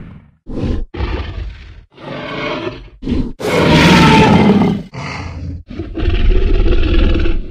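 A series of Tyrannosaurus rex creature sound effects: short growls and grunts, then a long loud roar in the middle and another long roar near the end.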